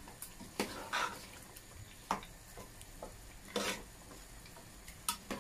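A spoon stirring rice and gravy in a pressure cooker: short scrapes and knocks of the spoon against the pot, about five of them spread out.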